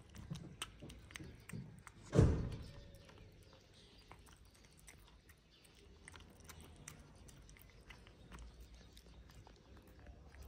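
A cat chewing and lapping wet cat food, a run of small wet clicks, with a single loud thump about two seconds in.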